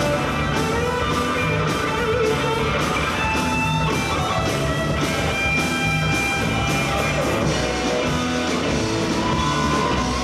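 Live rock band playing: electric guitar over bass and drum kit with a steady beat, the guitar holding long lead notes.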